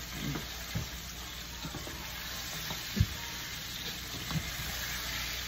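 Steady sizzle of chicken frying in hot oil, with a few faint knocks and a short thump about three seconds in.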